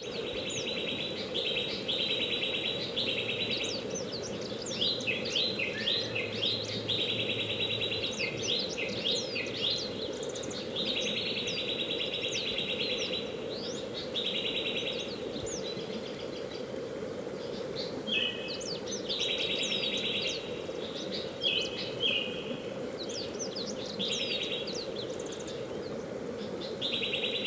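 Songbirds chirping over the steady rush of flowing water, with many short rising chirps and repeated buzzy trills, each lasting a second or two.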